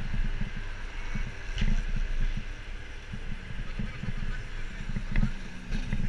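Wind buffeting the microphone of a bike-mounted action camera while riding, an uneven low rumble over a steady hiss of road and traffic noise, with a few faint clicks.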